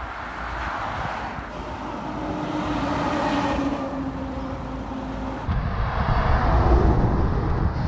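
Fast road traffic passing close by. A vehicle's tyre and engine noise swells and fades over the first few seconds with a steady hum in it, then a heavy lorry goes by with a deep rumble, loudest near the end.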